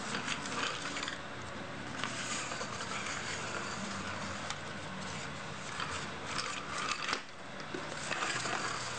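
Small toy gravity truck with plastic wheels handled and pushed by hand across a tiled floor: irregular scratchy rubbing and rattling from its wheels and frame, with several short louder scrapes.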